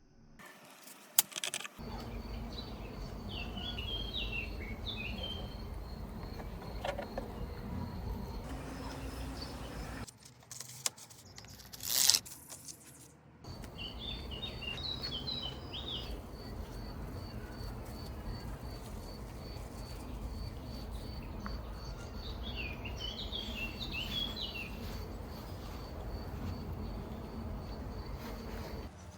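Outdoor ambience: a bird twittering in three short bursts over a steady, high, pulsing insect trill and a low background rumble. A brief loud noise stands out about twelve seconds in.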